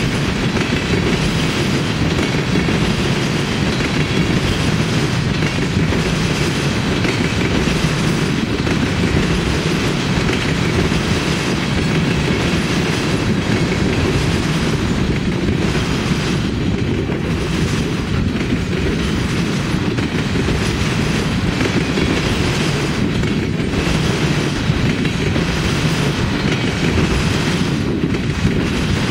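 A freight train of tank cars rolling past at close range: loud, steady wheel-on-rail noise, heaviest in the low range.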